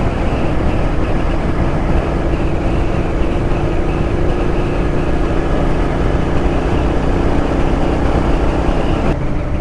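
Royal Enfield Interceptor 650's parallel-twin engine running at a steady cruise, under continuous wind and road noise on a helmet camera.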